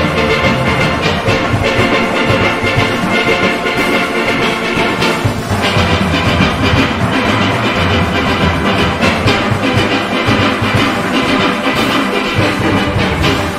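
A steel orchestra playing: many steelpans ringing together in a busy tune over a steady beat of drums and percussion.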